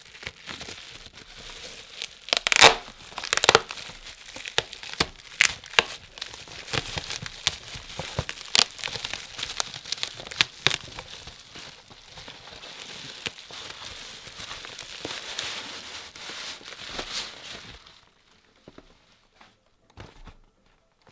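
Packaging being crinkled and torn open by hand to unwrap a microphone pop filter: a long run of sharp crackles and rustles, loudest a few seconds in, that stops about three seconds before the end, leaving a few faint clicks.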